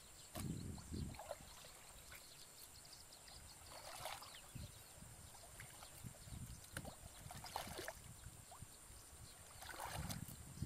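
Water sloshing and swishing around a person's legs as she wades through a shallow, muddy pond, in irregular splashes that are louder about half a second in and again near the end.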